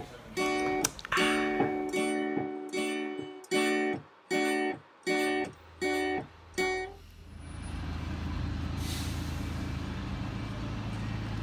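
Acoustic guitar strumming a run of short chords in a steady rhythm, each cut off sharply, stopping about seven seconds in. Then a steady low rumble of street traffic.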